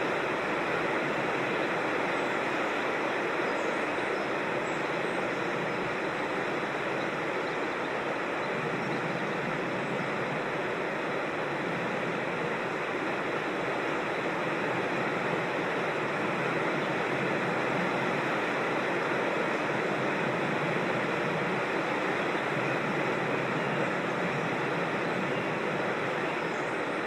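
Steady rush of a creek or small waterfall, an even unbroken water noise.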